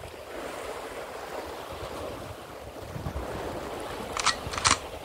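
Sea surf washing against a rocky shore, with wind on the microphone. Two brief sharp sounds come close together near the end.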